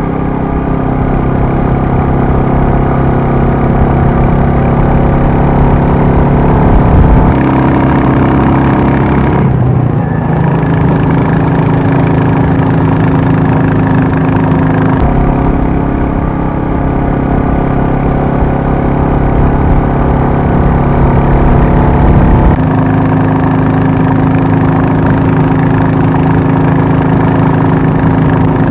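Royal Enfield 350 single-cylinder motorcycle engines idling steadily. The sound switches cleanly between the Classic 350 and Meteor 350 recordings about four times.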